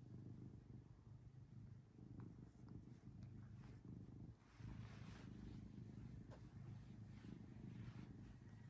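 Domestic cat purring steadily while being petted, with a brief break a little after four seconds in. Faint rustling of bedding as the cat rolls onto its back.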